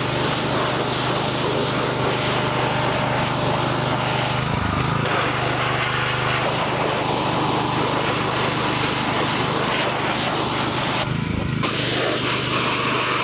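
Pressure washer running: a steady motor hum under the hiss of the water jet. The spray hiss drops out briefly twice while the motor note dips and recovers.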